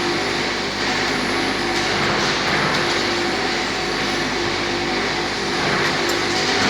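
Thread-rolling lathe machine running steadily: an even, continuous mechanical noise with a constant low tone under it.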